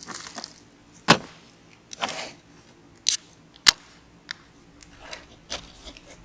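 Sharp clicks and knocks of small objects being handled and set down, with a short hiss about two seconds in and a brief high-pitched burst about a second later.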